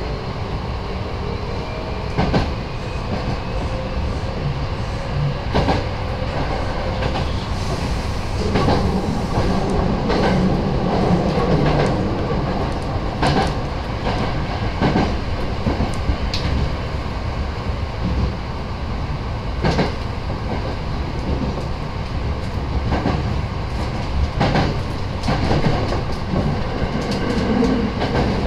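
Nose Electric Railway 7200 series electric train running along the line: a steady rumble of wheels on rail, with sharp clicks from rail joints every second or two.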